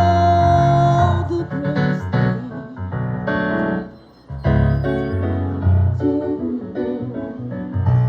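Piano playing an instrumental passage of sustained chords and melody, with no singing. The playing eases to a brief soft moment about four seconds in, then picks up again.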